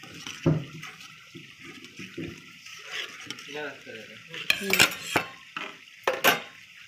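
A steel spoon stirring vermicelli in milk in a metal saucepan, scraping and clinking against the pan. There are sharper knocks about half a second in and a cluster of them over the last two and a half seconds.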